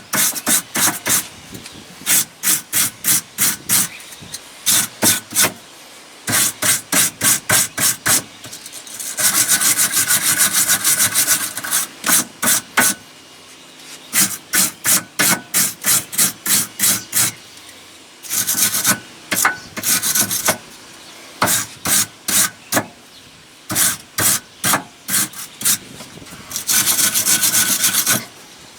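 Hand wire brush scrubbing the threaded steering shaft to clear off old red Loctite: quick back-and-forth scraping strokes, about four or five a second, with stretches of faster continuous scrubbing between pauses.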